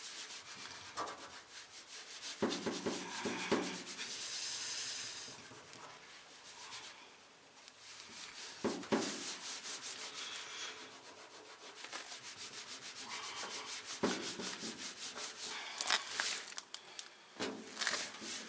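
A cloth rag wet with wax and grease remover scrubbed back and forth by hand over the painted door panel, in quick strokes that ease off briefly near the middle. The solvent is wearing back fresh sign-written lettering to make it look aged.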